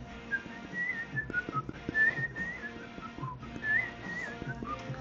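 A whistled tune, a single wavering high melody line, over quiet background music.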